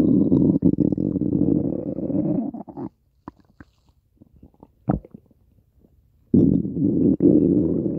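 Loud stomach growling in two long rumbles: the first stops about three seconds in, the second starts about six seconds in, with a few faint clicks between them.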